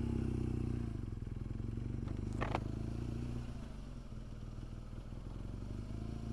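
BMW R1200GS boxer-twin engine running steadily at low revs as the bike rolls slowly along, with a brief clatter about two and a half seconds in.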